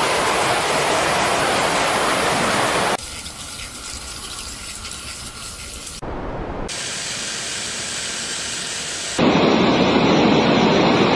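Steady rushing water noise, cut abruptly several times between takes: about three seconds in it drops quieter, and about nine seconds in it jumps louder and fuller.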